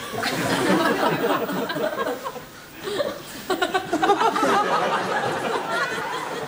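Studio audience laughing, in two waves with a short lull about two and a half seconds in.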